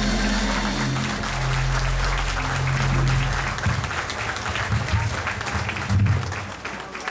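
A song's closing held chord rings out and stops about three and a half seconds in, as congregation applause builds over it and carries on, tailing off near the end.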